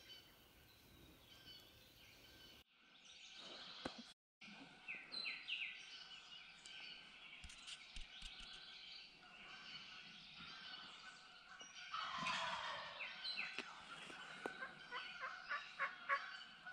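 Male wild turkeys gobbling in rattling bursts, loudest about twelve seconds in and again near the end, over songbirds chirping. The sound cuts out briefly twice near the start.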